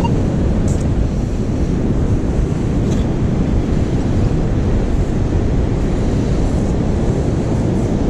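Wind buffeting the microphone over the steady rush of ocean surf, a loud, even rumble with no break.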